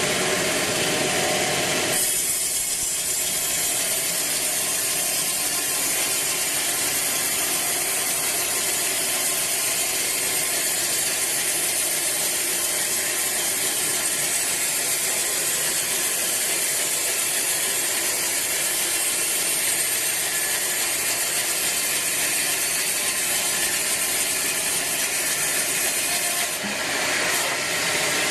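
Sawmill bandsaw cutting through a teak log: a loud, steady high rasp that sets in about two seconds in and shifts near the end.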